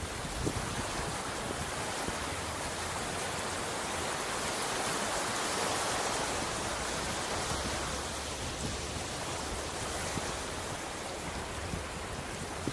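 Ocean surf washing onto a beach, a steady rush of water that swells a little around the middle and eases off again.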